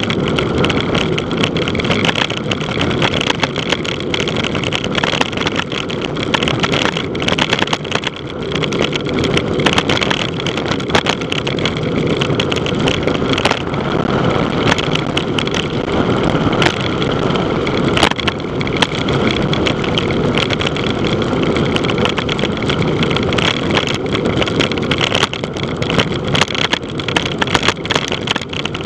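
Steady wind rushing over the microphone, with tyre and road noise from a bicycle on a fast descent, broken by a few sharp ticks.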